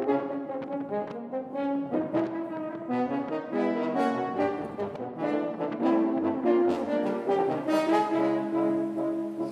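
Instrumental background music with held notes and chords that change about every second.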